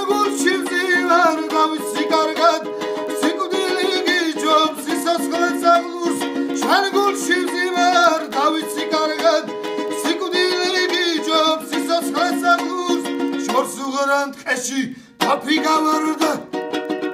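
Background music: a steady low drone under a melody that slides up and down in pitch. It drops out briefly near the end.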